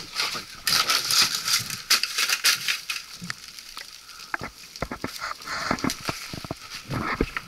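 Footsteps crunching over dry wood chips, twigs and debris: dense crunching for the first few seconds, then scattered sharp snaps and crackles.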